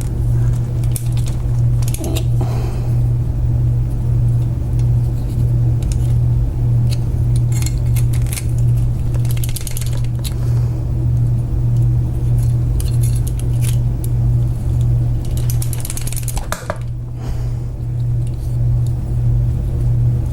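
Scattered light metallic clicks and scrapes as an old Kwikset door knob is worked apart with tools, over a steady low hum.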